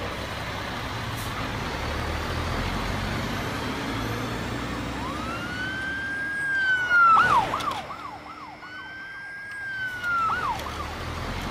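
A police siren wails up to a high held tone about five seconds in, switches to a quick yelp of rapid up-and-down whoops, then wails again and falls away. Underneath is a steady vehicle-engine rumble, with a brief loud rush of noise about seven seconds in.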